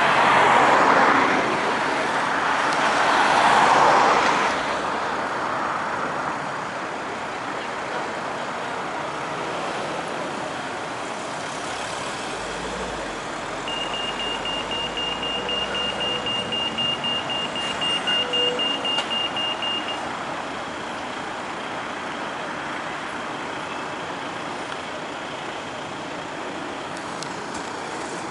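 Road traffic with two vehicles passing close by in the first few seconds, then steady traffic noise. Partway through, a British pedestrian crossing's audible signal sounds rapid, high-pitched beeps for about six seconds, meaning the green man is showing and it is safe to cross, then stops.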